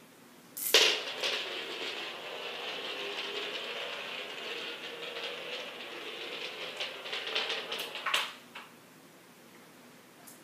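A sharp click from steel ball bearings striking the magnets of a homemade gauss rifle, then a steel ball rolling steadily for about seven seconds, ending in a few quick clicks and knocks.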